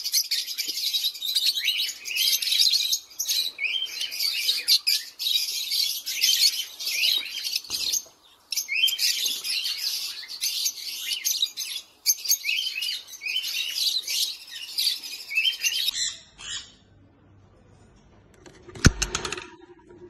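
A group of peach-faced lovebirds chattering together in rapid, high, shrill chirps, in stretches broken by brief pauses, with a flutter of wings. It falls much quieter towards the end, where a single sharp knock is the loudest thing.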